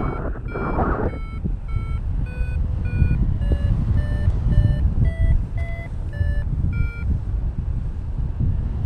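Paragliding variometer beeping about twice a second, the beep pitch rising and then falling back, the vario's signal of a climb strengthening and then easing; the beeping stops about seven seconds in. Low wind rush on the microphone underneath.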